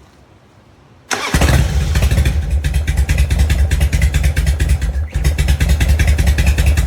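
Harley-Davidson V-twin motorcycle engine starting about a second in, then running loudly with a steady pulsing beat and a short dip about five seconds in.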